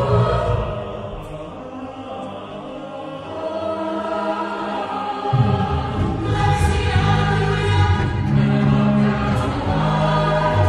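Choir singing in several parts. The low parts drop out and the sound thins for a few seconds, then the full choir with its low voices comes back in about five seconds in.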